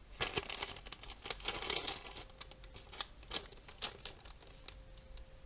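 The paper sleeve of a plastic cutlery pack being handled and crinkled: a run of short rustles and sharp clicks, busiest in the first two seconds, then a few separate crackles.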